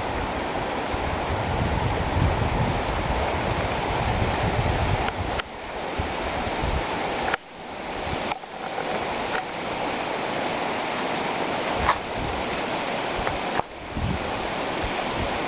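Steady rush of river water, with wind buffeting the microphone in uneven low rumbles; the sound drops out briefly a few times.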